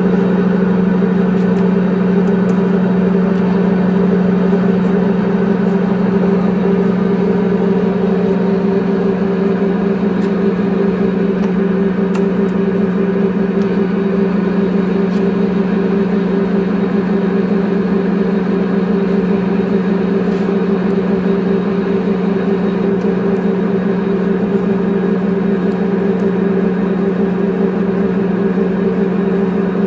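Jet GH-1660R geared-head engine lathe running steadily at a high spindle speed, its gearbox giving off an even whine.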